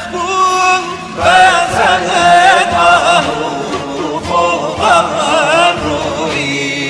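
A man singing a Kurdish song in a slow, ornamented melody, with wavering vibrato on long held notes, over instrumental accompaniment.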